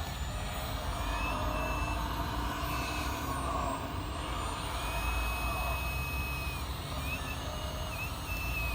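Electric hydraulic pump of a 1/14-scale RC hydraulic excavator whining, its pitch rising and dipping as the hydraulics take load, over a steady low rumble.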